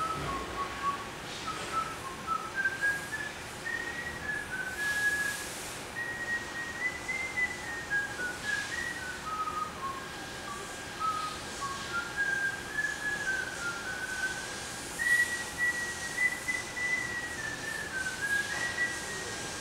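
A man whistling a slow tune, a single clear note stepping up and down through a melody without a break.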